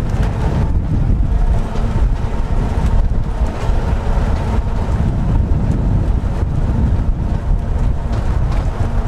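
Loud wind buffeting the microphone as it is held outside a moving Victorian electric railway tramcar, with the car running along the track underneath.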